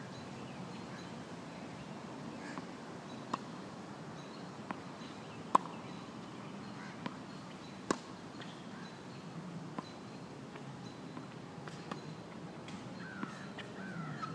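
Tennis ball being struck by rackets and bouncing on a hard court: about ten sharp pops at uneven intervals, the loudest about five and a half seconds in and another near eight seconds.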